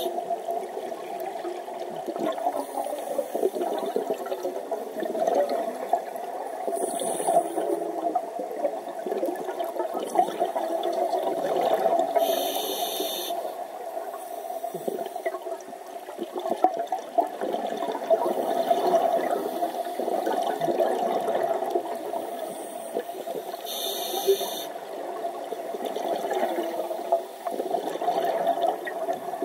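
Underwater sound of a scuba diver breathing through a regulator: a steady wash of bubbling water, broken every several seconds by a brief high hiss.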